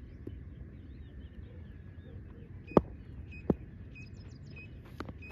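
Two sharp knocks about three quarters of a second apart, the first louder, over a steady low outdoor rumble.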